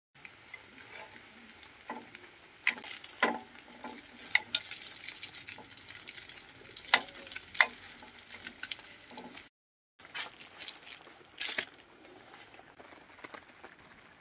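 Breaded cutlets sizzling in hot oil in a frying pan, with a metal fork clicking and scraping against the pan as they are turned. After a brief break, a quieter patter of rain on a plastic tarp follows.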